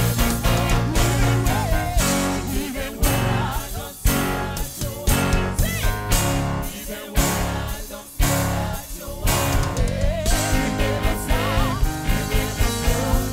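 Live gospel worship band with singers: guitars and keyboard over a steady beat, voices holding wavering sung notes.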